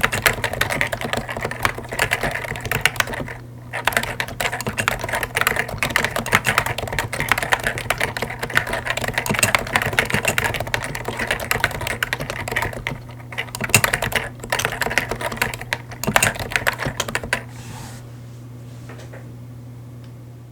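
Typing on a Topre Realforce Hi-pro keyboard with stock 45 g Topre switches and Hi-pro keycaps: fast, continuous keystrokes with a short pause about three and a half seconds in. The typing stops about three seconds before the end, leaving a steady low hum.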